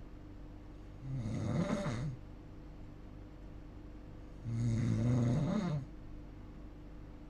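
A person snoring in sleep: two snores, about a second in and again past four seconds, each lasting a second or so with a rasping low drone.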